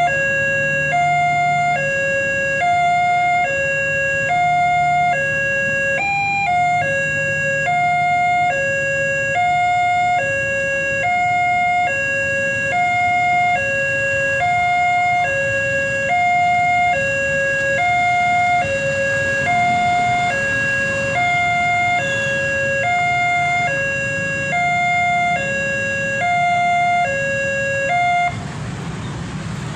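Railway level-crossing warning siren sounding a two-note hi-lo wail that alternates about once a second, hoarse and almost laughing in tone; one note briefly jumps higher about six seconds in. It cuts off near the end, leaving road traffic noise.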